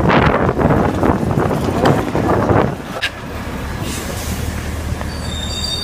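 Scooter wheels rolling over rough asphalt: a loud rumbling hiss that drops to a quieter, steady roll about three seconds in. A brief high squeal comes near the end.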